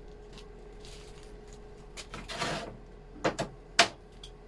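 Workshop handling noise: a short scrape about two and a half seconds in, then a few sharp knocks, the loudest near the end, over a faint steady hum.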